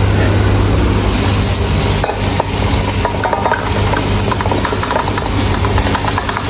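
Marinated chicken pieces being scraped off a steel tray with a metal slotted spoon into a pot of hot masala, sizzling, with repeated scrapes and clinks of the spoon on the steel, over a steady low hum.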